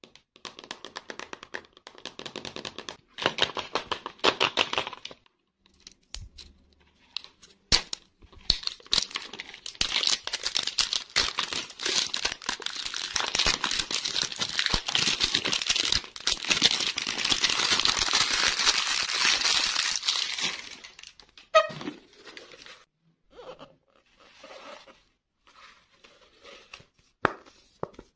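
Hands tearing and peeling a printed wrapper off a large plastic surprise egg: scratchy rubbing at first, then a long stretch of continuous tearing and crinkling, then scattered crinkles and light clicks as the egg and its contents are handled.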